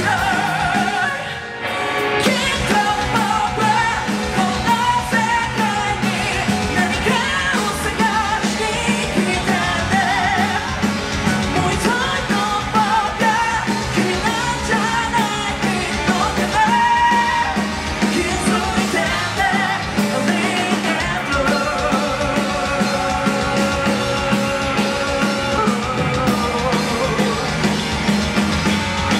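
Live rock band playing: electric bass, electric guitar and drums, with a voice singing over them. The loudness dips briefly about a second and a half in.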